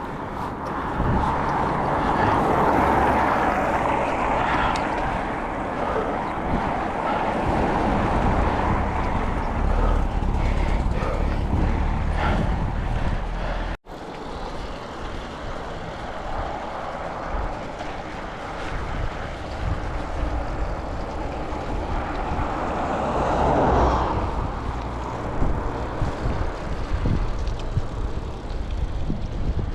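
Steady rushing noise with gusty low rumble from wind buffeting the microphone, broken once by a sudden cut about fourteen seconds in.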